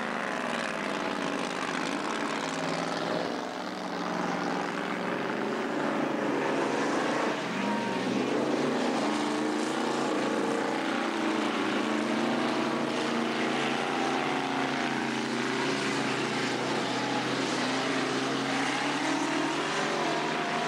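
Engines of several speedway cars racing together, their notes rising and falling over one another as they lap.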